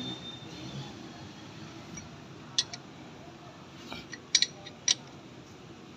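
A few sharp, light metallic clicks from parts and tools being handled at a car's front disc brake, over a faint steady background noise: one about two and a half seconds in, then several close together a little past four seconds.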